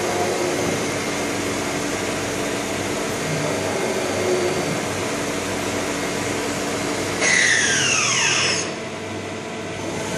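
CNC machining centre running: a steady mechanical whir and hum, then about seven seconds in a sudden louder burst carrying a whine that falls in pitch for about a second and a half before the sound drops quieter.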